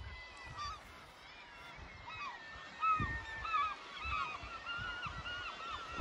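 Seabirds calling at a cliff nesting colony: many short calls that rise and fall, few at first, then a dense overlapping chorus from about two seconds in. Gusts of wind buffet the microphone.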